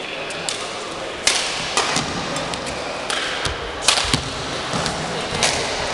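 Badminton rally: rackets sharply striking the shuttlecock about half a dozen times at irregular intervals, with players' feet landing on the court.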